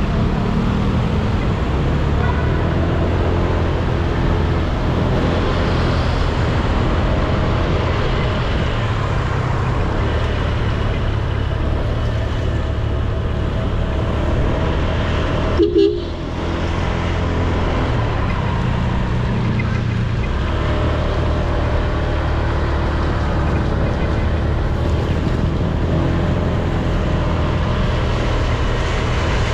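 Honda Click 125i scooter's single-cylinder four-stroke engine running steadily under way, with wind and tyre noise on a wet road. A short vehicle horn toot sounds about halfway through.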